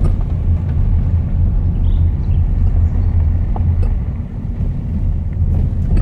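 Car driving slowly on an unpaved dirt road, heard from inside the cabin: a steady, loud low rumble of engine and tyres, with a few faint ticks.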